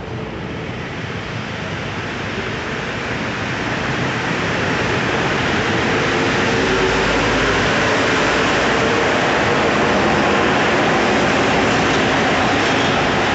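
Bombardier NC-82 rubber-tyred metro train pulling out of an underground station and gathering speed past the platform: the running noise swells over the first few seconds, then holds loud and steady with a faint whine from the motors.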